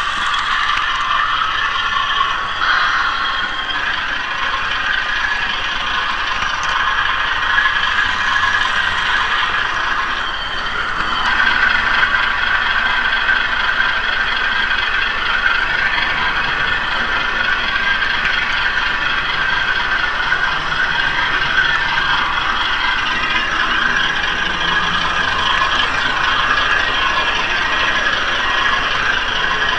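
HO-scale model train running on track, heard close up from a car in the train: a steady mechanical clatter and whir of wheels and running gear.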